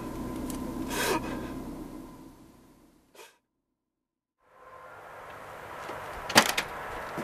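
A man's short breath over a low steady background, which fades to silence for about a second and a half. After it fades back in, a front door's latch clicks sharply twice in quick succession, the loudest sound, as the door is about to open.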